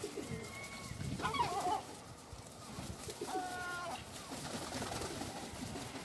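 Calls from a mixed flock of herring gulls and feral pigeons: a thin held note just under a second in, a wavering call at about a second and a half, and a short call of several stacked tones at about three and a half seconds.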